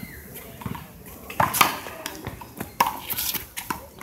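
A small rubber handball being played: a string of sharp smacks as it is struck by a gloved hand, hits the concrete wall and bounces off the asphalt court. The loudest smacks come about a second and a half in and again around the three-second mark.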